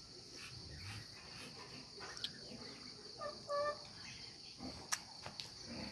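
Faint, steady high trilling of insects, with a short pitched animal call about three seconds in and a few sharp clicks.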